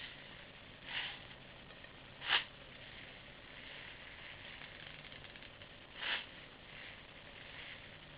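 Three short rattles from BBs and loading gear being handled while an airsoft gun is loaded, about a second, two seconds and six seconds in; the middle one is the loudest. A faint steady hiss lies under them.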